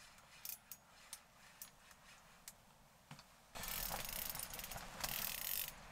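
Spinning reel during a fight with a hooked lake trout. A few light clicks, then about three and a half seconds in a steady fast ratcheting buzz for about two seconds: the drag giving line as the fish runs.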